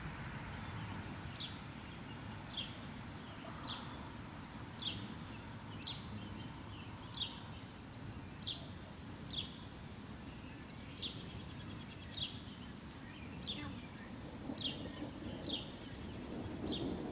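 A single bird giving a short, high chirp that falls in pitch, repeated about once a second, over a low steady background rumble.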